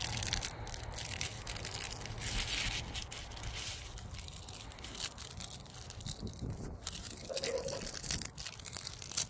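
Paper wrapper of a firecracker pack crinkling and tearing as it is handled and peeled open by hand.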